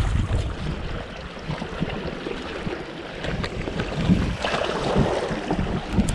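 Wind buffeting the microphone over waves washing against shore rocks, the surf swelling about four seconds in.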